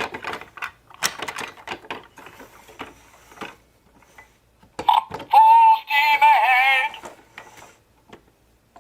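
Plastic toy train parts clicking and rattling as they are handled and fitted together, then about five seconds in the toy's small speaker plays a loud electronic sound with a wavering pitch for about two seconds.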